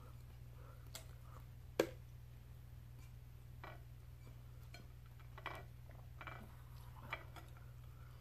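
Scattered light clicks and taps of shrimp being handled and dipped into a small glass sauce bowl on a plate, with one sharper tap about two seconds in, over a low steady hum.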